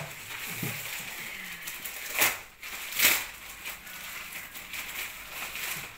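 Gift-wrapping paper rustling and crinkling as a present is unwrapped and a box opened, with two louder crackles a little after two and three seconds in.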